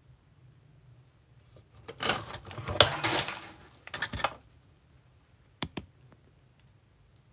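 Handling noise as the camera is moved and repositioned: about two seconds of rubbing and clattering, then two sharp clicks a little later.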